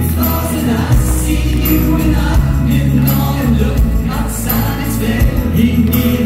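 A live band playing a song: keyboard, bass, drums with cymbals, and guitars, with the male lead singer's voice over the music.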